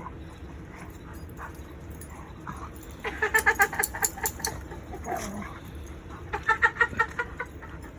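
A dog yipping in two quick runs of high, rapid yips, about three seconds in and again near the end.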